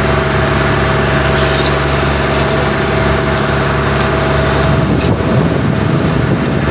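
An engine running steadily at constant speed, a continuous drone. Low wavering sounds join it in the last two seconds.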